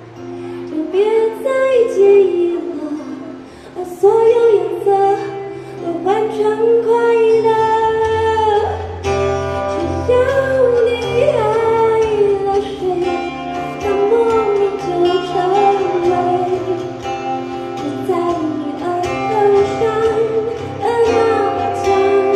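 A woman singing a song into a microphone with long held notes, accompanied by acoustic guitar, amplified live.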